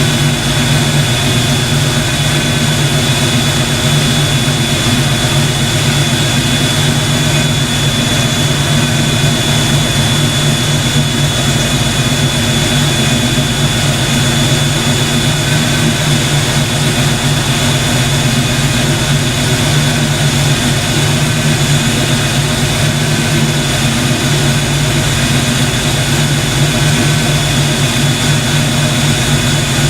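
Fox Body Mustang under the hood running steadily: a constant machine drone with a rushing, fan-like airflow and a thin high whine, unchanging throughout.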